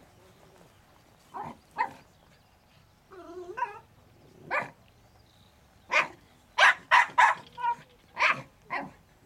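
Jack Russell terrier barking at a fox in an artificial den, in short sharp barks in irregular bursts that grow louder and quicker in the second half, with a longer wavering cry a little after three seconds in. This is the terrier giving tongue at its quarry underground.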